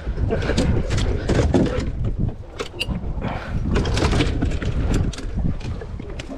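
Wind rumbling on the microphone aboard a small fishing boat, with scattered clicks and knocks of handling gear on deck.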